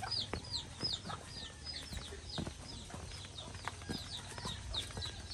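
A bird peeping: a steady run of short, high, falling peeps, a little more than two a second.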